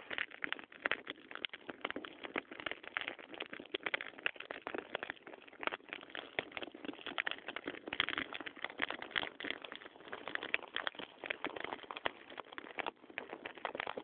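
Dry grass burning: dense, irregular crackling and snapping over a steady rush of flame.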